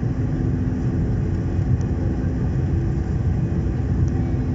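Airliner cabin noise: the steady low rumble of the jet engines and rushing air, with a faint steady hum, on the approach to landing.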